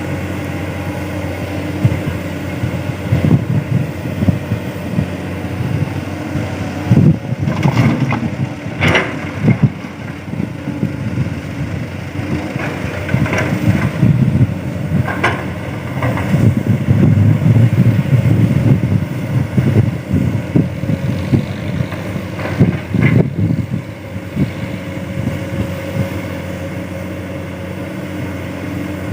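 Diesel engines of a Komatsu excavator and a dump truck running, with irregular knocks and clatter as hard, rocky soil is loaded.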